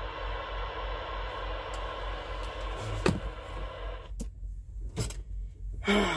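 CB radio static hissing from the speaker, cut off sharply about four seconds in, with a few sharp clicks and knocks around and after the cutoff. A steady low rumble of the truck's engine comes through the cab underneath.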